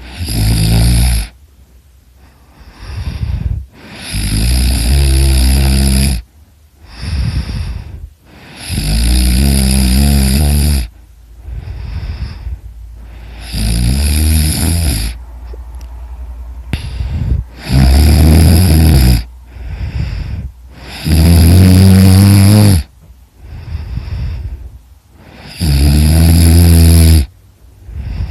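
A person snoring heavily in sleep: about seven loud, rattling snores, one roughly every four seconds, with quieter breathing sounds between them.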